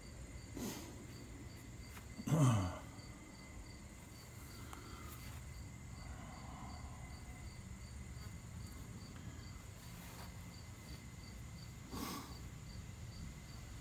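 A cricket chirping steadily in the background, a few short chirps a second, over a low hum. About two and a half seconds in, a brief louder sound drops in pitch, and there are faint knocks near the start and about twelve seconds in.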